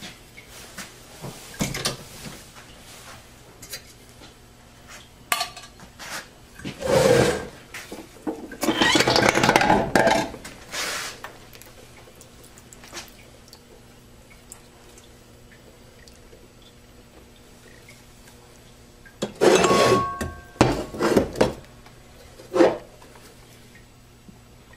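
Steel clutch plates and clutch drums from a Ford 6R80 automatic transmission clinking and clattering against each other and the workbench as they are handled and set down, in a few short clusters with quiet stretches between.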